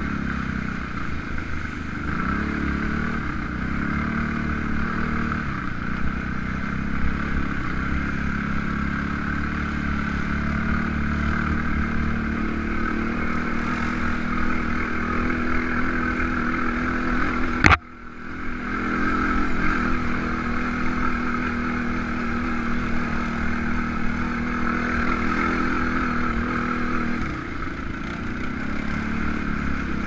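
Kawasaki KFX700 ATV's V-twin engine running along a dirt trail, its pitch rising and falling with the throttle a few seconds in and again near the end. A little over halfway through there is one sharp crack, after which the sound dips for a moment and comes back.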